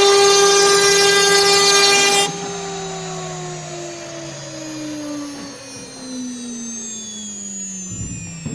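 CNC router spindle running at speed with a high steady whine, then switched off about two seconds in, its pitch falling slowly as it winds down at the end of the spoilboard skimming pass. A few low knocks come near the end.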